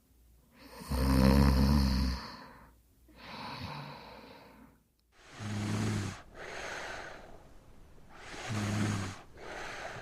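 A small child snoring in sleep: three low, rattling snores a few seconds apart, each followed by a softer breathy out-breath. The first snore is the loudest.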